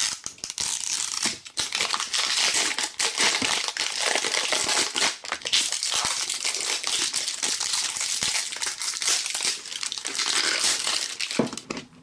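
Clear plastic film wrapper crinkling continuously as hands peel it off a plastic cupcake-shaped toy capsule.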